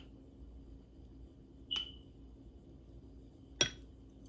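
A spoon clinking twice against glass, the second clink louder, each leaving a short ring, as whipped coffee cream is spooned from a glass bowl onto a glass of milk.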